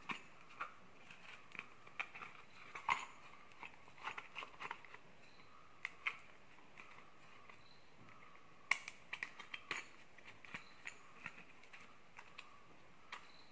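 Irregular small clicks, taps and rustles of hands working the plastic nylon-line head of a bush cutter and its cutting line, with a sharper click about three seconds in and another near nine seconds.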